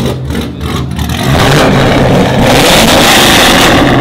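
C6 Chevrolet Corvette's V8 being revved, the exhaust jumping sharply louder about a second in and staying loud.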